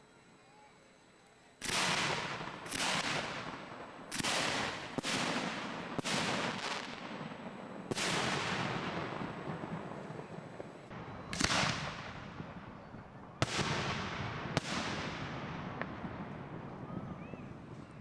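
Aerial fireworks shells fired from mortar racks: about ten sharp, loud reports at uneven intervals, starting about a second and a half in. Each report is followed by a long fading rumble of echo.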